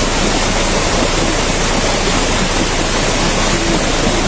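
Loud, steady rushing of water.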